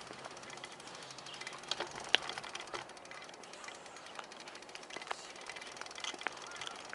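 A bicycle being ridden along a path: steady ride noise with scattered sharp clicks and rattles, the loudest about two seconds in.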